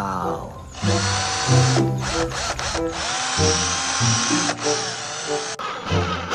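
Electric drill whirring, starting about a second in, cutting out briefly several times, and stopping near the end, over light background music.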